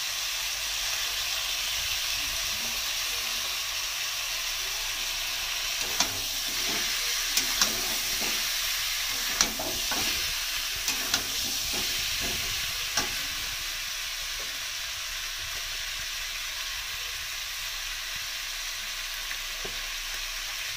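Mutton pieces and onions sizzling in hot oil in a black kadhai, turned over with a steel spatula. The sizzle is steady, and from about six to thirteen seconds in the spatula knocks and scrapes against the pan several times.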